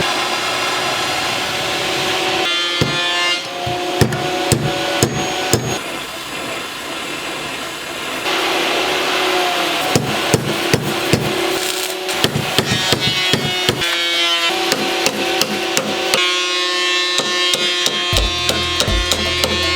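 Background music of held tones with many sharp percussive hits, at times several a second.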